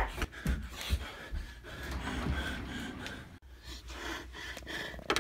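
A few hurried footsteps, then a person gasping and breathing hard.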